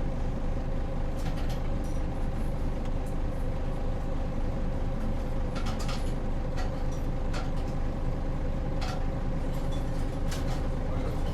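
Hino Rainbow HR city bus heard from inside the cabin while driving: the diesel engine and drivetrain run at a steady pitch over road rumble, with scattered short clicks and rattles from the bus body.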